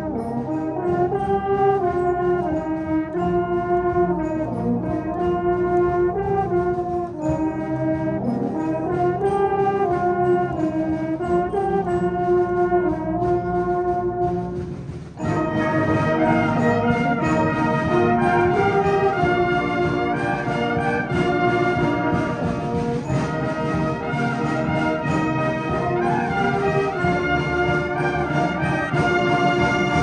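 Batterie-fanfare brass band playing: sustained brass chords under a moving melody. About halfway through there is a brief drop, and then the full band comes in with a fuller, brighter sound.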